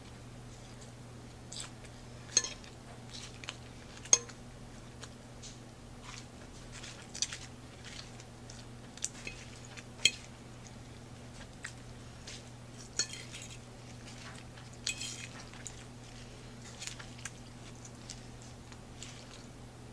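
Metal fork clinking and scraping on a ceramic plate while picking up spinach salad, with close-up crunchy chewing of the salad in between; the sharpest clinks come about two, four and ten seconds in. A steady low hum runs underneath.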